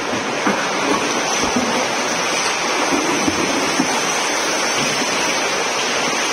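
Several swimmers splashing through front crawl strokes in an indoor pool, heard as a steady wash of splashing water.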